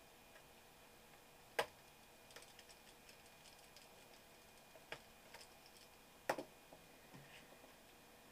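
Small clicks and taps of a screwdriver and tiny screws on a PowerBook G4's RAM cover: three sharper clicks, about a second and a half in, near five seconds and near six seconds, with a patter of faint ticks between.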